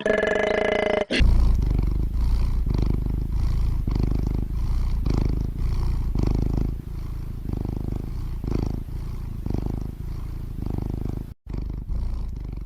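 An animal's low rumble, pulsing about twice a second and breaking off briefly near the end. A short ringing tone with several pitches comes first.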